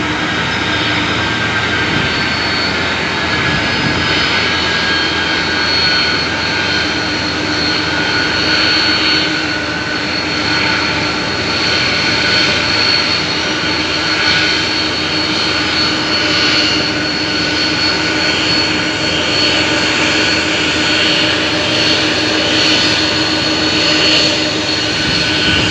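Boeing 747-300's jet engines running steadily, a continuous roar with a steady high whine over it.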